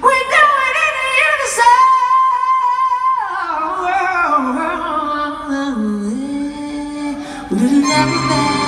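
A woman singing solo, live and wordless: she holds a high note for a couple of seconds, then steps down through a melody to a low held note. Near the end a fuller musical sound joins in.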